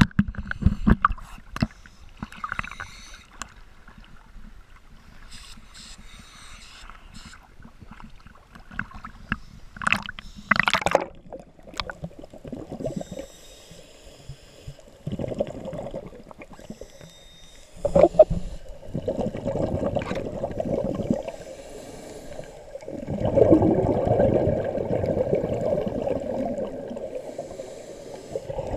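Water sloshing and splashing around an underwater camera housing at the surface. Then, below the surface, scuba divers' exhaled regulator bubbles rumble past in repeated bursts, the longest and loudest near the end.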